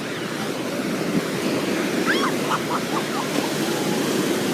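Ocean surf washing on a beach, a steady rushing noise, with a few faint high calls about halfway through.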